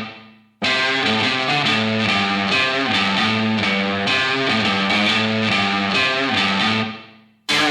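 Background rock music with strummed guitar. It fades out at the start, starts again abruptly about half a second in, and fades to a short silence near the end.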